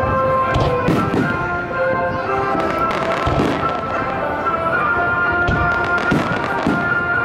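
Aerial fireworks shells bursting in a series of sharp bangs, about one a second, over music that plays throughout.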